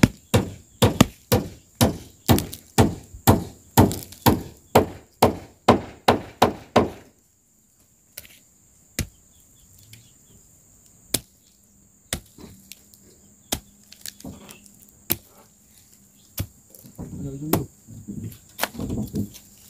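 Parang (machete) chopping at a charred tree stump, with steady strokes about two a second that stop about seven seconds in. After that come a few single, spaced-out knocks.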